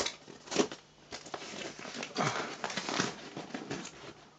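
Packing tape on a cardboard box being cut and pulled loose: irregular crinkling, scraping and tearing with small clicks.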